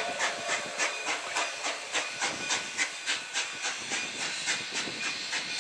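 Narrow-gauge Cumbres & Toltec steam locomotive working a long train, its exhaust chuffing steadily at about four beats a second.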